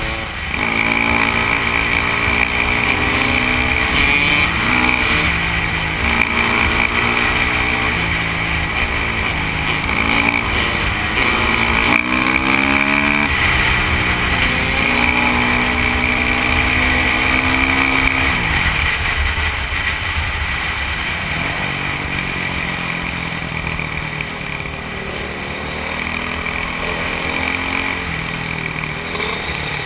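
Dirt bike engine under way, revving and shifting so that its pitch climbs and drops in repeated steps, with wind noise on the microphone. About two-thirds of the way through the engine note falls away as the bike slows, then picks up again at a lower level.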